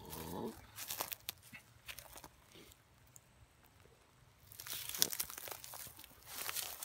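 Crinkling and rustling handling noise with scattered clicks, as a hookah is set down and handled among dry leaves and grass on the ground. There is a quieter stretch about two and a half seconds in, then denser rustling from about four and a half seconds.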